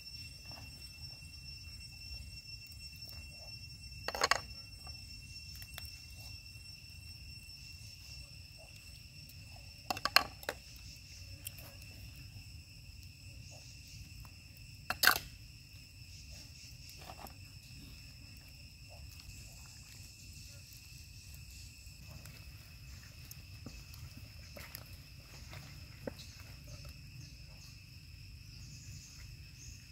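Steady high drone of forest insects, two even tones running throughout over a low rumble. Three sharp knocks about four, ten and fifteen seconds in, from metal tongs striking the clay cooking pot.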